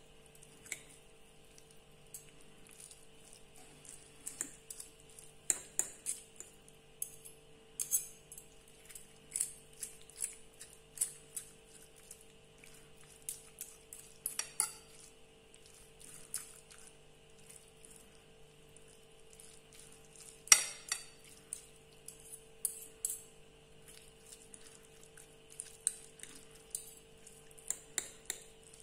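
Two metal forks clinking and scraping against a ceramic plate as they pull fried haddock fillets apart into shreds. The clicks are irregular and light, with one louder clink about two-thirds of the way through.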